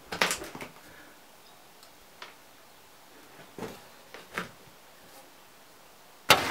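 A few scattered knocks and clicks, as of wooden objects being handled, with a small-room sound; near the end a sudden loud crack as a dry branch is grabbed and handled.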